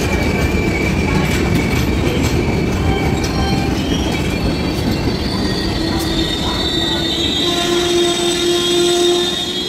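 Express train's LHB passenger coaches passing at speed: a loud continuous rumble of wheels on rail, with thin high-pitched wheel squeal running over it. A lower steady tone joins in near the end.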